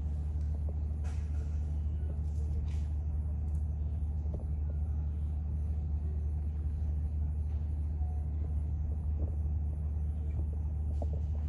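Steady low rumble of running machinery, unchanging throughout, with a faint high-pitched pulsing about three times a second and a few soft clicks.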